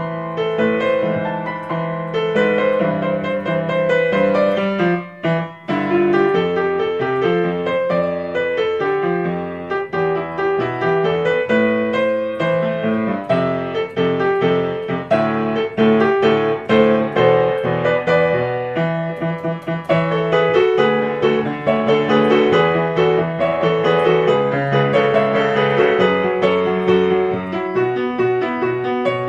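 Background piano music, a steady run of notes with a brief dip about five seconds in.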